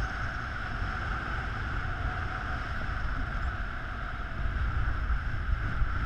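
Wind of a paraglider's flight buffeting an action camera's microphone: a steady low rumble with an even hiss above it, growing louder and gustier about two-thirds of the way through.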